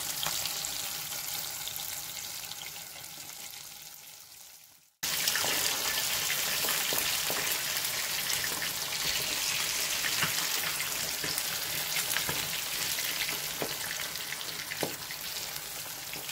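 Fish pieces frying in hot mustard oil: a steady sizzle with scattered pops. It fades out about five seconds in, then comes back abruptly at full strength.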